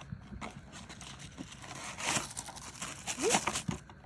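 Small paper and plastic toy packaging crinkling and rustling as it is handled, louder about two seconds in and again just after three seconds, with a brief rising squeak during the second burst.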